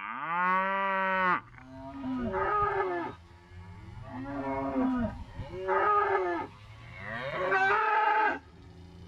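Farm livestock calling: five drawn-out calls in a row, each about a second or so long, the first the longest.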